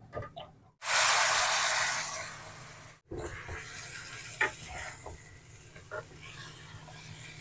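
Water splashed into a hot frying pan of masala and peas: a sudden loud sizzling hiss about a second in that fades over about two seconds. After that comes a quieter steady sizzle with a few knocks of a wooden spatula stirring fried cauliflower and peas in the pan.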